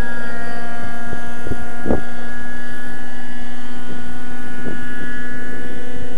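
Thunder Tiger Raptor 50 radio-controlled helicopter's nitro glow engine and rotors running steadily as it hovers low, a continuous engine whine with rotor noise. A few short thumps break in over it.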